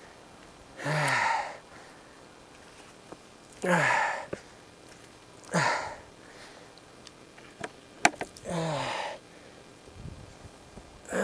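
A man's hoarse, breathy vocal exhalations, four of them a couple of seconds apart, each falling in pitch. A sharp click comes shortly before the last one.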